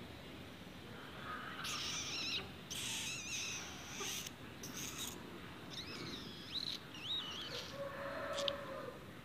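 Young kittens making faint, short, high-pitched wavering squeaks a few times, then a short lower mew near the end.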